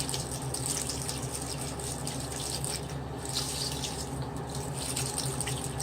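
Tap water running into a sink while a makeup sponge is scrubbed against a bar of soap under the stream, with irregular squishing and splashing over the steady flow.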